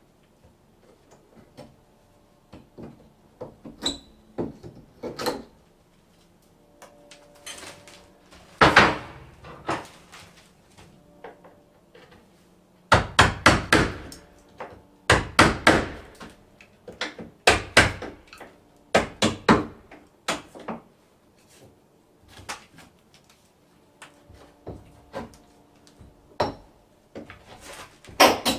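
Hammer blows knocking out a plaster wall laid over metal mesh: irregular sharp strikes, some single and some in quick runs of three to five.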